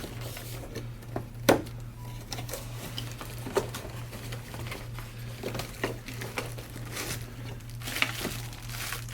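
Scattered light clicks, taps and rustles of packaging and small parts being handled while a box is unpacked, over a steady low hum.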